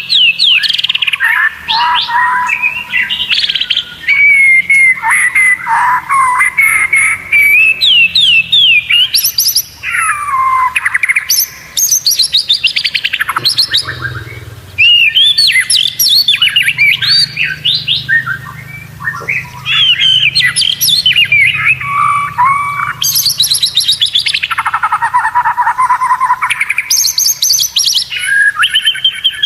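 White-rumped shama singing a fast, varied song of whistles, sweeping notes and rattling trills, almost without a break apart from a couple of short pauses.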